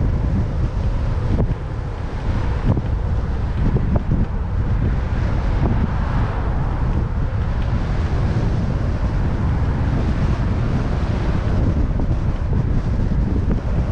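Strong wind buffeting the microphone, a steady low rumble throughout.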